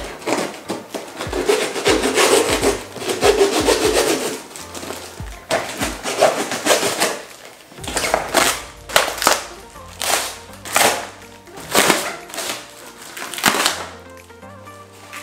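Cardboard box and its packing tape being ripped open by hand: a run of tearing and scraping strokes, coming about once a second in the second half, over background music.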